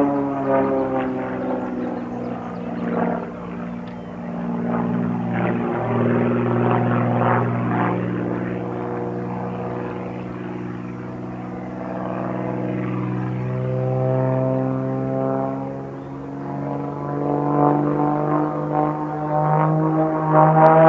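Extra aerobatic airplane's piston engine and propeller droning overhead. The pitch slides down at the start, then rises and grows louder over the last few seconds as power and speed change through the manoeuvres.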